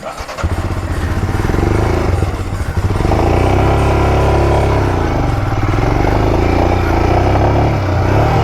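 Motorcycle engine revving under load as the bike climbs a rocky off-road slope. It comes in about half a second in and gets louder from about three seconds in.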